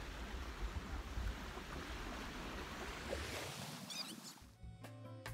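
Wind rumbling on the microphone over lapping lake water, fading out after about four seconds; background music begins near the end.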